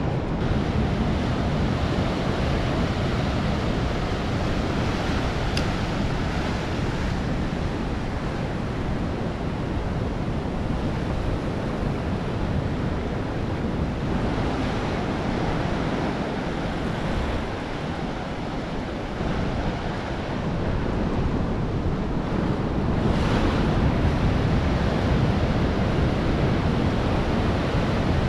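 Rough ocean surf breaking, with wind buffeting the microphone: a steady rushing noise that swells slightly near the end.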